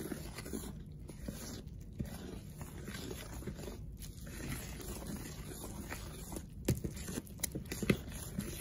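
A plastic spoon stirring a wet flour, salt and water dough mixture in a mixing bowl: irregular scraping against the bowl, with a few sharper taps in the last couple of seconds.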